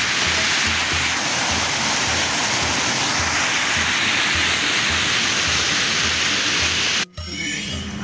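Creek water rushing steadily, with a steady bass beat of music under it; both break off abruptly near the end.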